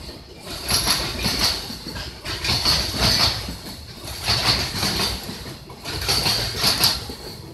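A freight train's container flatcars rolling past, their wheels clattering over the rail joints in paired beats about every two seconds, with a high metallic ring in each clatter.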